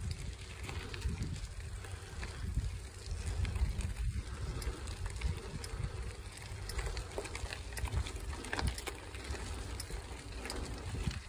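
Bicycle rolling along a gravel trail: a steady low rumble with faint scattered crunches and clicks from the tyres on the gravel.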